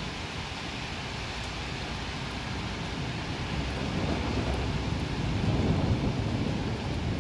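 Steady rain hissing, with a long roll of thunder rumbling in about halfway through and peaking a couple of seconds later.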